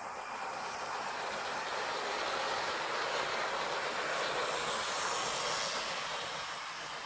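OO-gauge model train, a Class 47 locomotive with Mk3 coaches and a DVT, running past on the track: a steady whirr and rattle of the motor and wheels on the rails. It grows louder as the train passes close, about three to five seconds in, then fades as it moves away.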